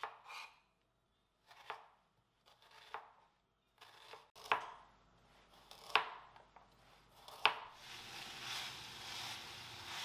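Kitchen knife chopping vegetables, red onion and then carrot slices, on a wooden cutting board, with single sharp strikes a second or so apart. About eight seconds in the chopping gives way to a steady sizzle of chicken and onion frying in a pan.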